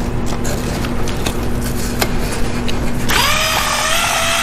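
Cordless drill spinning a cylinder hone in the bore of a Kohler CH25S engine, the hone stones scraping and clicking against the cylinder wall as they break the glaze. About three seconds in, a higher whine rises briefly and then holds steady.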